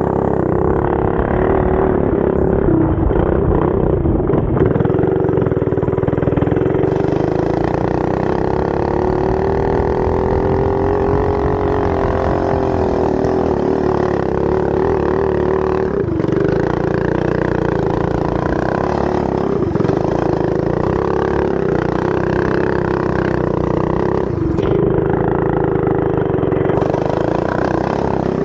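Go-kart's small engine running hard and continuously, its pitch swelling up and back down about a third of the way through, with a few brief dips later on.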